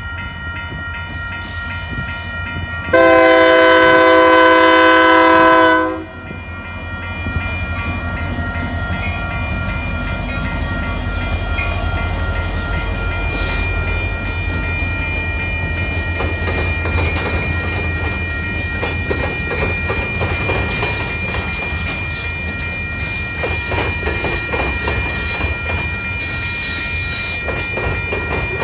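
Over the steady ringing of a railroad crossing's warning bell, a freight locomotive's horn gives one long blast about three seconds in, the loudest sound here. Then a freight train of covered hopper cars rolls past at the crossing, its wheels rumbling and clacking over the rails while the bell keeps ringing.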